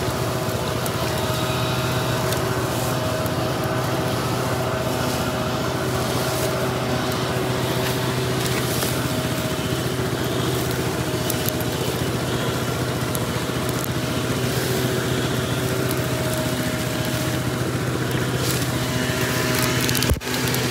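A small engine running at a steady drone with a low hum and no change in speed. Over it, dry branches crackle and rustle as they are pulled off a brush pile.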